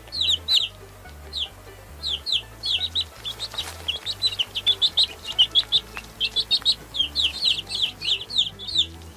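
Baby chicks peeping: many short, high calls that each fall in pitch, several a second and often overlapping, over a soft low music bass line.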